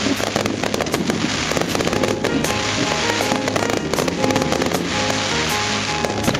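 Fireworks display: a dense, continuous run of bangs and crackling pops from bursting aerial shells, with music playing underneath.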